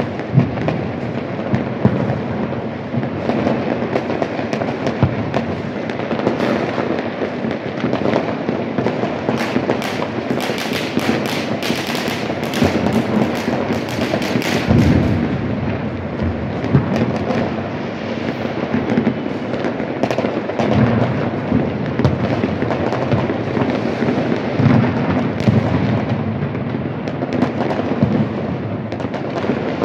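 Many fireworks and firecrackers going off at once: a continuous din of bangs, pops and crackling, with a thick run of sharp cracks about a third of the way through.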